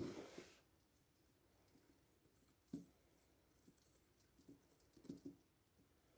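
Faint handling sounds of frosting being spread on a gingerbread house: a brief soft scrape at the start, then a few light taps, in near silence.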